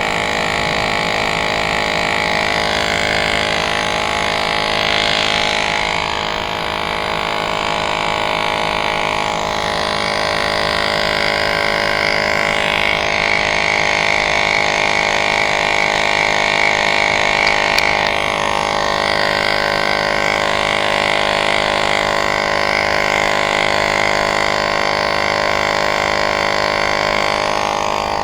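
Electric tyre inflator running with a steady drone, pumping air into an e-bike's front tyre inner tube, which has just been filled with sealant.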